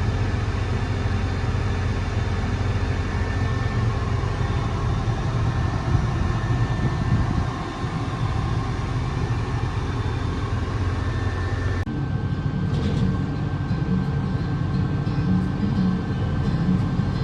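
Combine harvester running steadily while cutting wheat, a dense low machine drone with a few steady tones; the sound changes abruptly about twelve seconds in.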